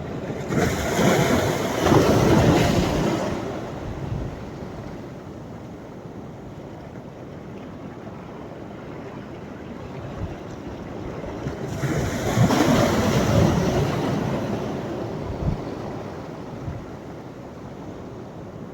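Sea waves breaking on a sandy beach: one wave crashes and washes up about a second in and another about twelve seconds in, with a steady low rush of surf between them.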